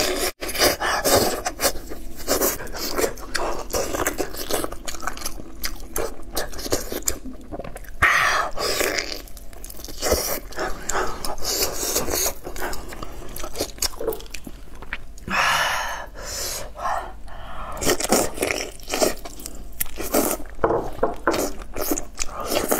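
Close-miked eating of hot lamb rib meat: wet chewing and lip-smacking in a steady run of clicks. The meat is also being torn from the bone by gloved hands.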